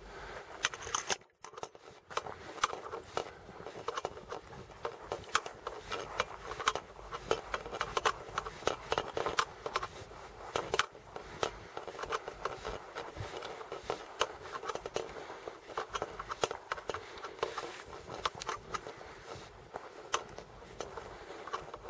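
Irregular crackling and rustling, many sharp clicks a second, from movement through dry leaves and brush.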